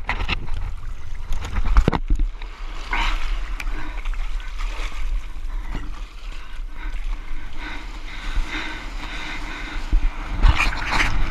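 Choppy water lapping and splashing around a helmet camera held at the surface, over a steady low wind rumble on the microphone; heavier splashing near the end.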